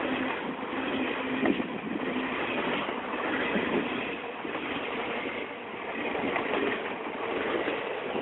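Passenger train coaches rushing past close by: a steady rumble of steel wheels on rail, with scattered clatter as the wheels cross rail joints.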